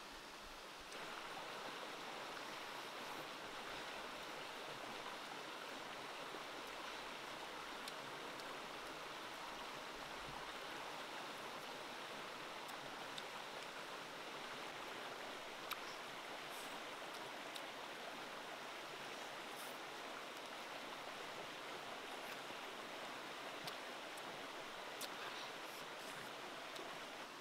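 Steady rushing background noise, like a flowing stream, starting about a second in, with a few faint clicks.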